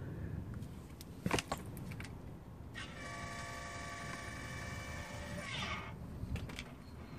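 Electric exhaust cutout valve's motor whining steadily for about three seconds as it drives its butterfly shut, then stopping abruptly. A couple of sharp clicks come about a second in.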